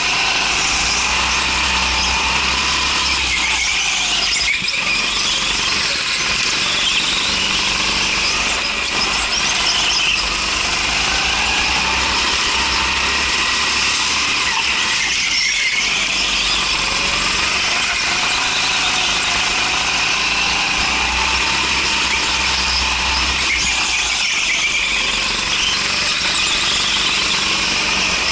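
Rental go-kart's small engine running hard under the onboard camera, its pitch rising and falling as the kart accelerates and slows through the laps, with two brief dips.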